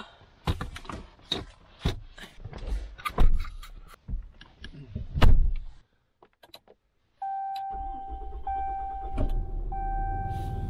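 Clicks, knocks and two heavy thumps, then after a short pause a vehicle engine starts about seven seconds in and keeps running with a low rumble. A steady tone sounds over it and breaks off every second or so.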